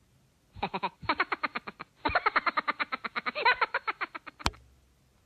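Edited-in comic sound effect: a rapid pitched pulsing, about a dozen pulses a second, that stops and restarts twice, ending with a single sharp click.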